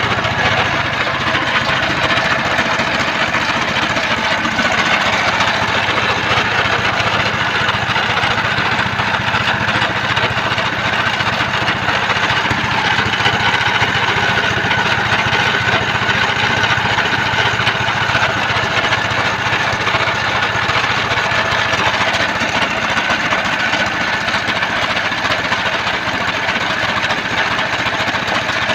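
Engine of a homemade portable circular sawmill running steadily, with a faint steady whine over it.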